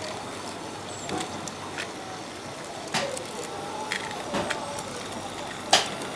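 Small 32 mm gauge garden-railway train, two locomotives and a coach, rolling along the track, with a few irregular sharp clicks from the wheels on the rails, the loudest near the end, over a steady outdoor hiss.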